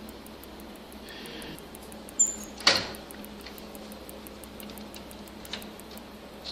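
Front door of a Canon imageRUNNER 2002 copier being opened: a sharp click about two seconds in, then a louder knock half a second later. A faint steady hum runs underneath, with a few light clicks as hands work in the toner compartment near the end.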